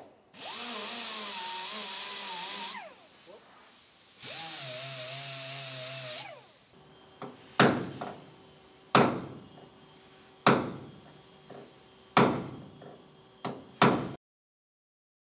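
Air-powered wire wheel spinning against the steel seams of a Porsche 912E chassis in two bursts of about two seconds each, its whine wavering as it is pressed on. Then five sharp hammer blows on the body seam about a second and a half apart, each ringing briefly, with a few lighter taps between.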